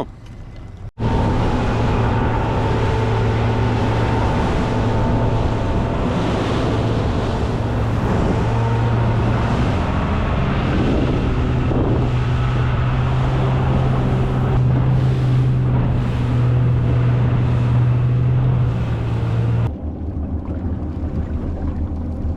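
Outboard motor of a RIB boat running steadily at speed, with wind on the microphone and water rushing past the hull. The sound gets quieter over the last few seconds.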